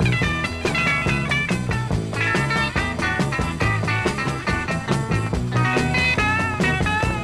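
Instrumental break of an early-1960s rock and roll record: a lead instrument plays the melody over a bass line and a steady drum beat, with a wavering held note near the end.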